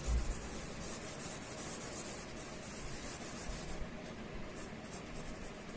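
A cloth duster wiping marker writing off a whiteboard in repeated back-and-forth rubbing strokes, which thin out in the last couple of seconds.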